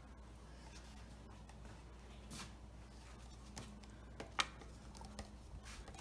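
A few faint, scattered clicks and knocks of a plastic funnel being set into a motorcycle engine's oil filler neck and an oil bottle being handled. The sharpest knock comes about four and a half seconds in.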